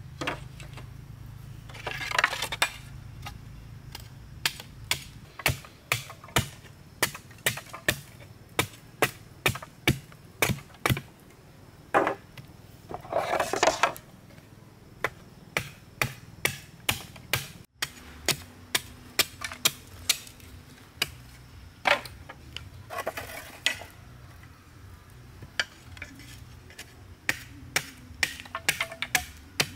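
Machete chopping and splitting bamboo: a run of sharp strikes, about two a second, broken by a few brief rasping stretches.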